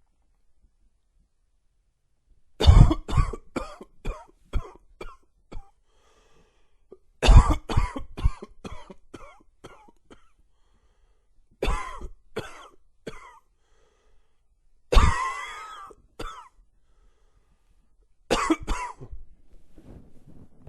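A man coughing in five fits, each a quick run of several dry, wheezy coughs, with short pauses between them and a breathy, raspy inhale near the end.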